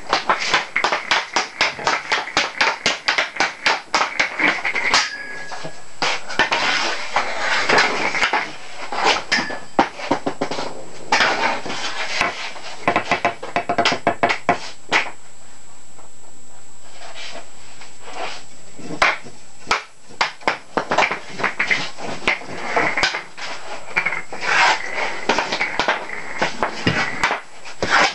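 Ice-hockey stick blade rapidly tapping a roller hockey puck back and forth on a hard floor, a quick clatter of about five clacks a second, with a lull of a few seconds just past the middle before the tapping resumes.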